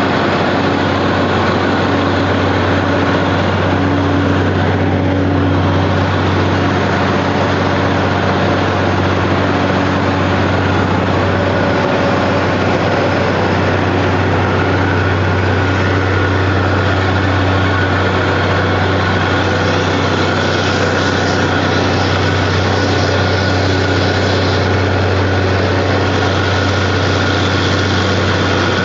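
Engine of a DTH water-well drilling rig running steadily, a low, even drone with no breaks.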